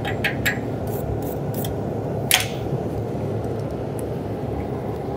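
Steady low hum of running shop equipment, with a few light metallic clicks and one sharper click about two seconds in as the stick-welding electrode holder is handled between passes.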